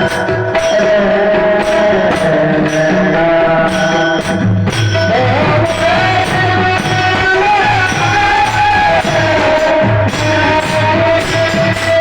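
Marathi devotional kirtan music: a singer's voice holding a long, gliding melody over percussion keeping a steady beat.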